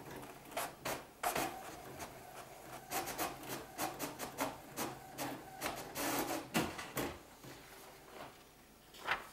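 Inkjet desktop printer printing a page: a series of short mechanical strokes and rubbing sounds that stops about seven seconds in.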